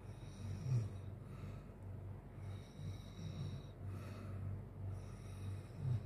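A sleeping man snoring steadily in a low, rhythmic rumble, with louder snorts about a second in and again near the end.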